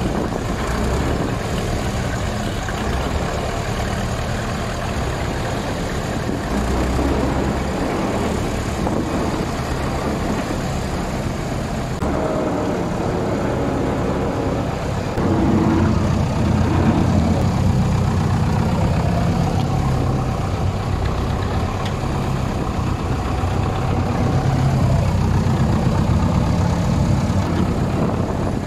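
Engine of a 4x4 vehicle running on a road run, a steady low drone with road noise that grows louder about halfway through.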